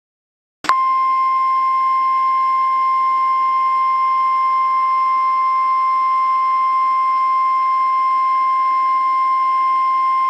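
Emergency alert warning tone: one steady, loud, high-pitched tone held without a break, starting with a click just under a second in.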